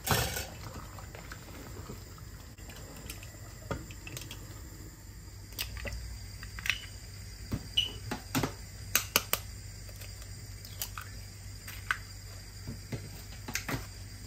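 Food cooking in a pot or pan on the stove: irregular sharp pops and clicks over a steady low hum.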